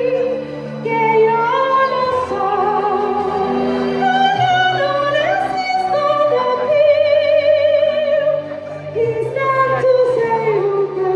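A woman singing into a handheld microphone, amplified, over instrumental backing music, holding long notes with a wide vibrato.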